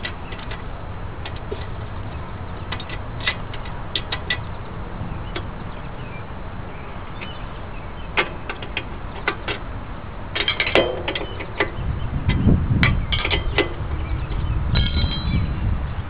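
Hand tools on a Suzuki GZ250's rear axle nut: a 19 mm open wrench and a 17 mm socket clinking and clicking on the metal as the axle nut is loosened. Scattered sharp clicks, a quick cluster of them about ten seconds in, and dull low rumbles in the last few seconds.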